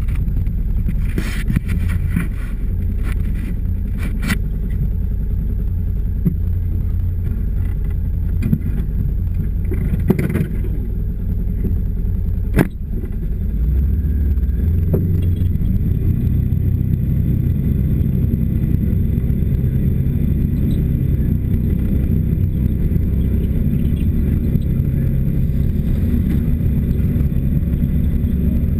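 Small vehicle engine running, with knocks and rubbing from the hood-mounted camera being handled during the first half. About thirteen seconds in, the engine settles into a steady, slightly louder drone as the machine moves off.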